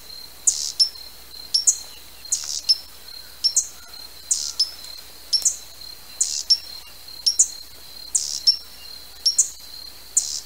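Hummingbird giving sharp, high chips, mostly in pairs, about one pair a second, over a steady high-pitched whine.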